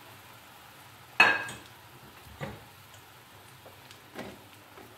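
Spatula knocking against a nonstick frying pan while bread cubes fry in ghee and are stirred: one sharp ringing clank about a second in, then two softer knocks.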